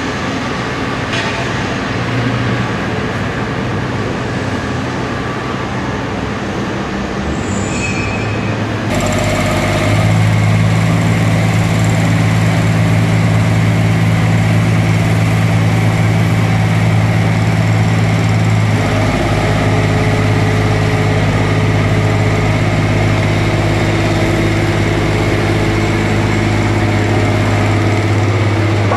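Diesel engine of a Liebherr R 964B hydraulic excavator running steadily as it works. About nine seconds in the sound becomes louder, with strong steady engine tones.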